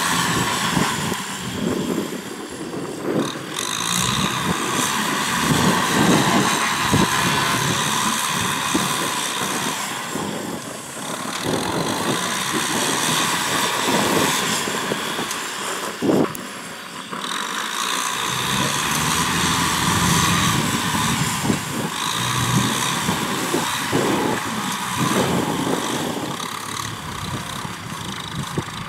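Kubota M6040SU tractor's diesel engine running steadily under load while its rear-mounted Maschio rotary tiller churns wet soil, with irregular low thumps throughout and one sharp knock about halfway through.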